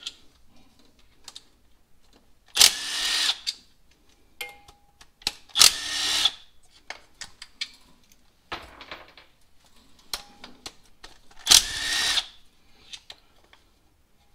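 Cordless power driver spinning out the 8 mm bolts that hold a water pipe on the engine: three short whirring runs of under a second each, with quieter clicks and clinks of the tool and parts between.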